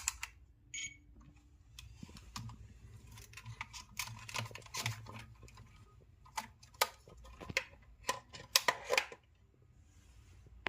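Irregular series of short clicks and taps, bunched in quick runs, over a faint low hum.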